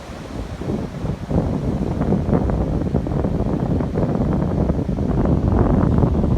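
Wind buffeting the microphone, a gusty rumble that grows louder over the first second or two and then stays strong.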